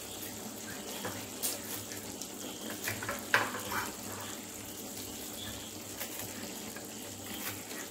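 Table knife cutting a kaippathiri flatbread on a plastic plate: a few short scrapes and clicks of the blade against the plate, over a steady background hiss.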